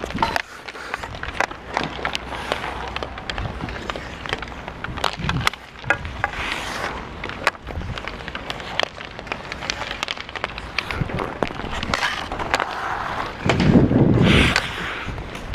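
Ice hockey skates carving and scraping across the ice, with the stick blade tapping and pushing the puck in many sharp clicks. A louder, longer scrape comes near the end.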